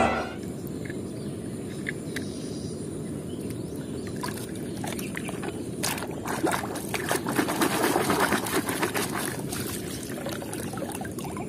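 Muddy water sloshing and splashing as a hand swishes a toy vehicle through it, with trickles and drips; the splashing gets busier about halfway through.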